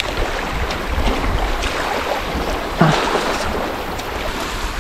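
Wind noise on the microphone over small waves washing onto a lake beach.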